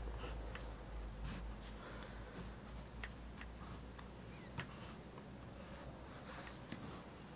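Faint scratching of a blue pencil on paper in short strokes as a child draws small boxes, with a few sharp little ticks of the pencil against the paper and table. A steady low hum runs underneath.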